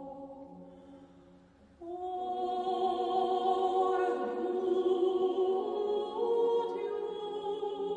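Unaccompanied singing of an Armenian hymn in long held notes. One phrase fades away, and a new, louder phrase begins about two seconds in, stepping up in pitch near the end.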